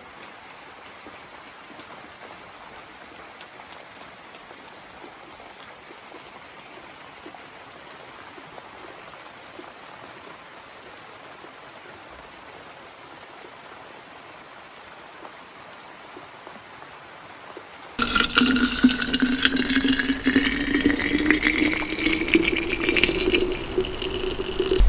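Faint steady background hiss, then, about three-quarters of the way in, water starts pouring into a container; the pitch of the pour rises steadily as the container fills.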